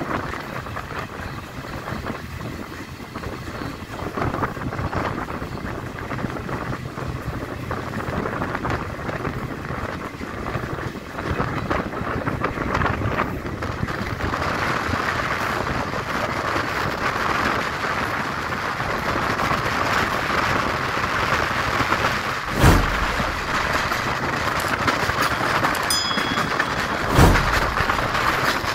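Running noise of a moving passenger train heard from an open window of a coach: a steady rush of wheels on rail and wind that grows louder about halfway through. Two heavy thumps stand out near the end.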